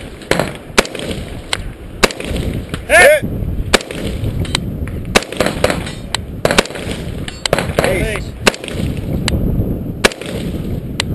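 Rifle gunfire: sharp single shots at irregular intervals, about one or two a second, the loudest about three seconds in.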